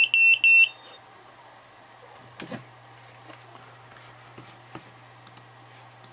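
High-pitched electronic beeps, a few short ones then a longer one that stops about a second in, followed by quiet room tone with a few faint clicks.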